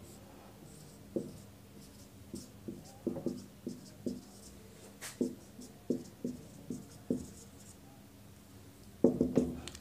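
Marker pen squeaking and scratching on a whiteboard in a dozen or so short strokes as a word is written by hand. Near the end a louder sound sets in.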